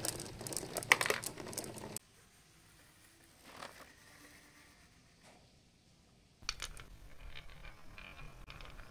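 Marbles rolling and clattering down a cardboard track, knocking against plastic straw pegs in a dense run of quick clicks that cuts off suddenly about two seconds in. It is then quiet until about six and a half seconds in, when lighter scattered clicks of marbles rolling in a wooden groove start up.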